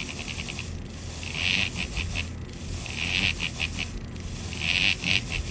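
Vibrating sex toy running on a pulsing pattern setting: a rapid buzzing pulse with louder surges about every one and a half seconds, over a steady low hum.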